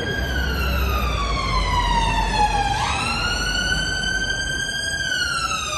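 Emergency vehicle siren on a slow wail. The pitch sinks for nearly three seconds, sweeps quickly back up, climbs a little more, then starts falling again near the end, over a low rumble of road traffic.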